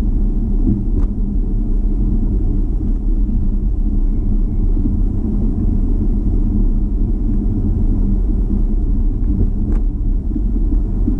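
Steady low rumble of a car's road and engine noise heard from inside the cabin while driving slowly, with a couple of faint ticks about a second in and near the end.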